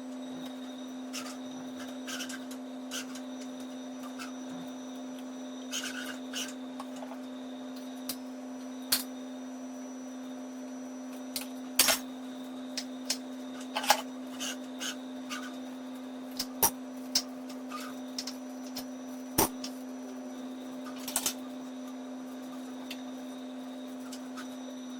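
Dishes clinking and knocking as they are handled and set down in a kitchen sink, a couple of dozen scattered sharp clacks. Under them runs a steady electrical hum.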